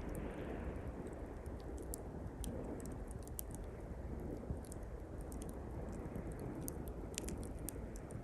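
Small campfire of pine twigs crackling with frequent sharp pops and snaps, over the steady wash of sea waves breaking on the shore.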